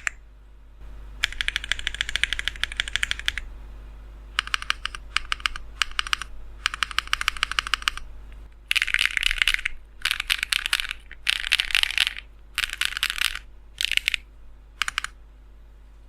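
Fast typing on a Lucky65 mechanical keyboard with Matcha Buttermilk switches: runs of rapid key clacks in separate bursts, the later bursts louder and shorter, stopping about a second before the end.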